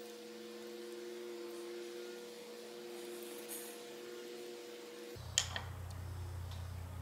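Steady electrical mains hum, which switches abruptly about five seconds in to a lower hum, with a couple of light clicks just after.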